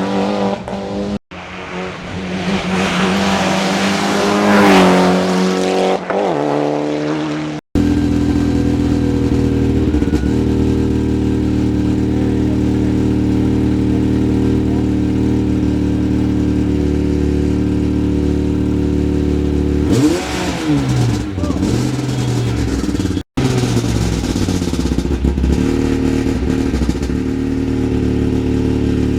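Hill climb race car engines in several cut-together clips: engines revving and changing pitch through gear changes early on, then a long stretch of steady engine note, with brief revving swoops again about twenty seconds in.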